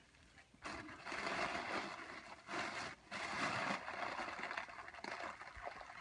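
Breathy hiss of helium being sucked out of a latex balloon's neck, in long draws broken by short pauses.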